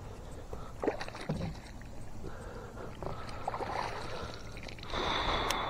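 Water splashing and small knocks around a fishing kayak while a hooked bass is brought in, with a louder rush of splashing about five seconds in.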